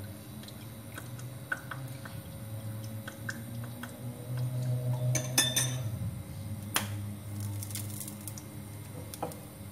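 Metal spoon clinking against a small ceramic bowl as fish sauce is spooned in: a few light clinks, with two sharper ones past the middle. A low steady hum sits underneath.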